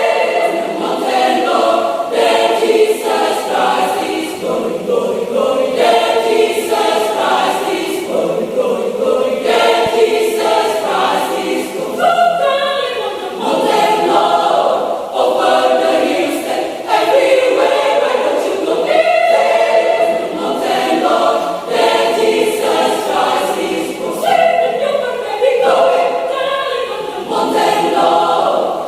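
Mixed adult church choir of men's and women's voices singing a sacred choral piece in parts, phrase after phrase without a break.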